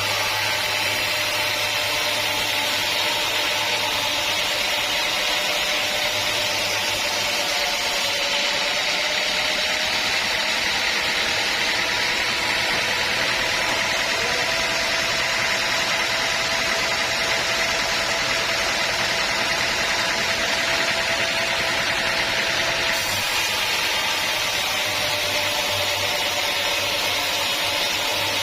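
Sawmill saw running steadily through teak wood with a constant mechanical whine. From about 8 seconds in until about 23 seconds in, the whine drops slightly in pitch and the low hum fades, then both return.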